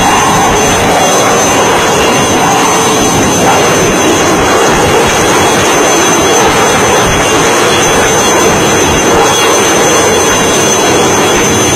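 HAL Cheetah helicopter hovering low overhead: a loud, steady rush of rotor and turbine noise with a thin, constant high whine.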